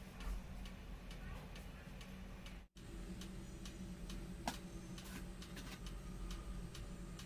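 Faint, evenly spaced ticking clicks, about three a second, over a steady low hum. The sound cuts out completely for a moment a little over two and a half seconds in.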